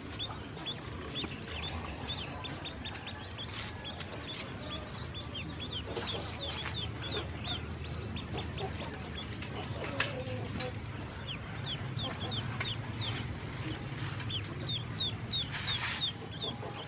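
Ducklings peeping: a steady stream of short, high peeps, each falling in pitch, several a second from the brood.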